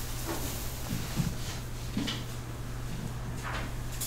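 Quiet room tone under a steady low electrical hum, with a few faint soft knocks, about one, two and three and a half seconds in.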